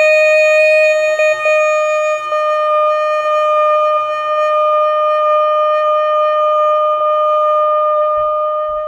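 Alto saxophone holding one long, steady note on written C (concert E-flat) with a full, open tone, played with a relaxed, dropped jaw.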